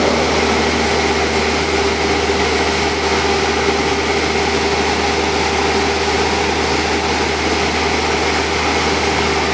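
Bobcat T40180 telehandler's diesel engine running steadily with a constant hum, the boom raised and holding its load.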